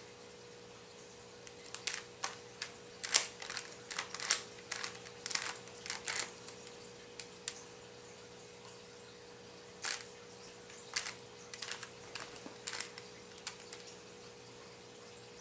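Plastic 3x3 Rubik's cube being turned by hand: its layers clack as they rotate. A quick flurry of clicks comes a couple of seconds in, then single turns now and then.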